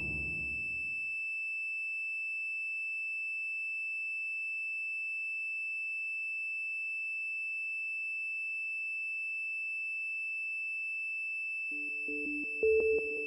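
A single high electronic sine tone held steady in an ambient electronic track, as the low musical texture under it dies away in the first second. Near the end a low, pulsing two-note electronic figure with soft clicks comes in.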